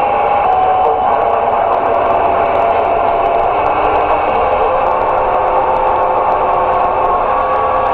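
Cobra 29 LX LE CB radio receiving on channel 19: a steady hiss of static with thin whistling tones that come and go and shift pitch, the noise of distant skip stations bleeding in.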